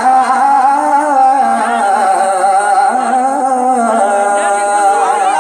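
A man singing a naat into a stage microphone, holding a long drawn-out note on a vowel without words, with wavering ornaments around it.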